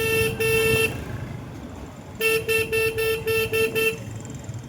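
A vehicle horn honked in quick short toots. One run ends about a second in, and a second run of about seven toots comes from about two to four seconds in.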